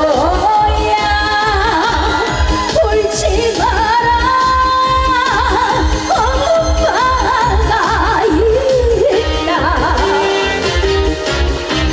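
A woman singing a trot song with heavy vibrato, backed by a band with a steady thumping bass beat.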